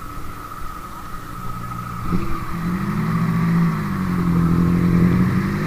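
An engine running: its low note comes up strongly about two seconds in, rises briefly and then holds steady, growing louder. A steady high whine lies over it in the first part.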